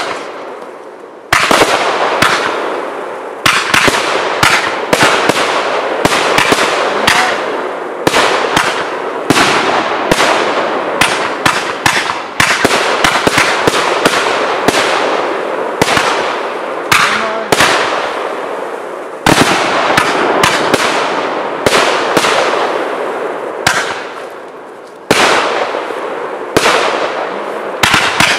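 Category 4 display firework shells bursting in quick succession, roughly one to two a second, each a sharp bang that fades away over about a second.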